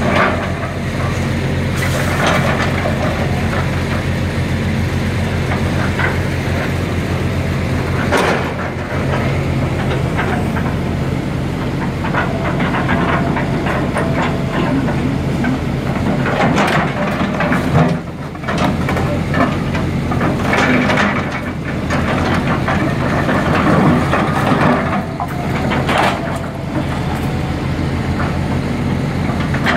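Volvo excavator's diesel engine running steadily under load as its bucket tears into a wood-framed house, with wood cracking and crunching now and then.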